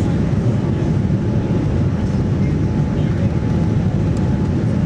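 Steady rumble of engine and airflow noise heard inside the passenger cabin of a Boeing 787-9 airliner in flight, with a faint thin steady tone above it.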